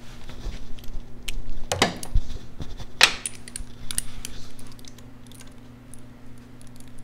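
Metal clinks and taps of rocker box bolts and hand tools being handled while the bolts are started by hand, with two louder metallic clanks about two and three seconds in.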